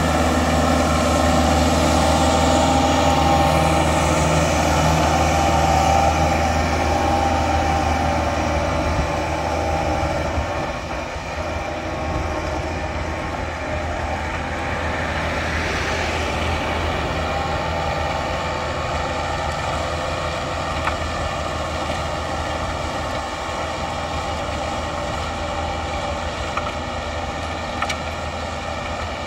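Kubota tractor's diesel engine running steadily under load while it pulls a Celli rotary tiller through the soil. It is louder at first as it passes close, and settles quieter after about ten seconds as it moves away.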